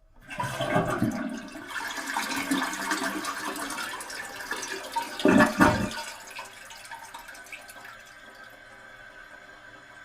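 Toilet flushing: a rush of water starts right away, with two loud gurgling surges about five seconds in, then settles to a quieter steady hiss as the toilet refills after the flush.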